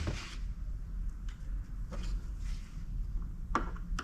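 A few faint clicks and light knocks from parts being handled during disassembly, over a low steady hum.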